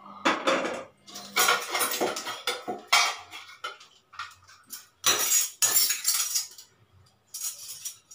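Metal cooking vessels (an aluminium pot, steel bowls and lids) clanking and scraping as they are handled and set down, in about six separate bursts of clatter.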